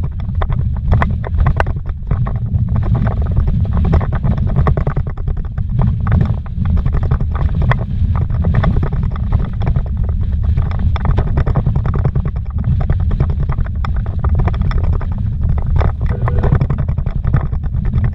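Car driving over a rough, rocky dirt road, heard from inside the cabin: a continuous low rumble from the engine and tyres, with constant irregular rattles and knocks as the car jolts over the bumps.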